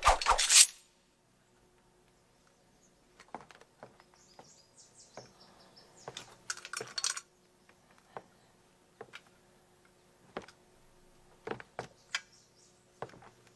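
A sudden loud burst in the first second, then a quiet stretch with scattered light clicks and taps, a small cluster of them about halfway through.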